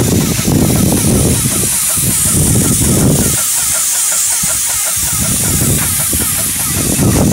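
Airless paint sprayer on an extension pole spraying exterior paint onto siding, a steady loud hiss from the spray tip, with uneven low rumbling and a fast repeating chirp beneath it.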